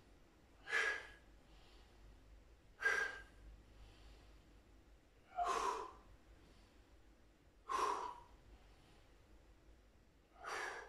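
A man breathes out hard in five short, forceful breaths, about one every two to two and a half seconds. This is the effort of holding a static plank on straight arms.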